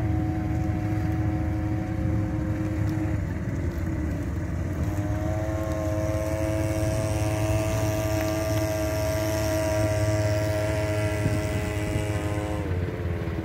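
Engines of a homemade karakat amphibious ATV and the outboard motor mounted on it, running as it crosses a river. The engine note drops about three seconds in, climbs back a second and a half later and holds higher, then falls again near the end.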